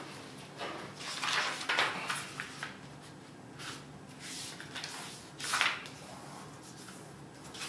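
A sheet of A4 paper being folded and creased by hand on a table: a series of crisp papery rustles and swishes, the sharpest about five and a half seconds in.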